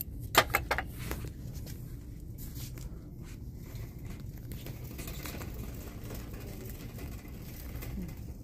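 A quick cluster of sharp clicks and knocks in the first second, from store merchandise being handled, then a steady low rumble with faint rustling.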